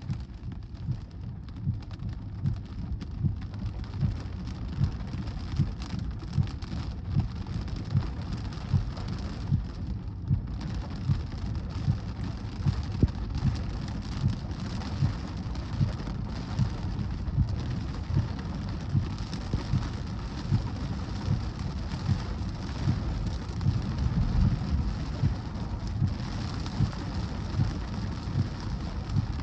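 Heavy thunderstorm rain coming down hard, setting in suddenly at the start, with many short low thumps through the steady hiss.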